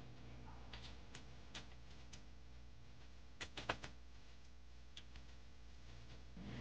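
Faint scattered clicks and taps over a low steady hum, with a quick cluster of three about three and a half seconds in.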